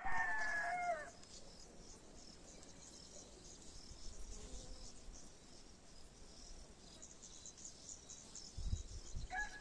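Insects chirping, a steady high shimmer. A rooster's crow tails off in the first second, and another crow begins just before the end.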